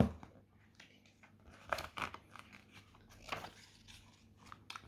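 Soft rustling and small clicks of paper as a picture book's page is handled and turned, in two short clusters about two seconds in and just past three seconds.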